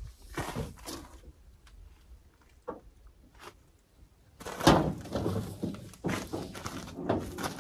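Knocks and clunks of gear being handled, with one loud heavy thump about halfway through followed by a run of smaller knocks.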